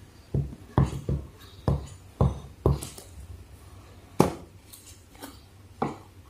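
Hands opening a cardboard smartphone box: about ten irregular knocks and taps as the box is turned and its lid pulled off.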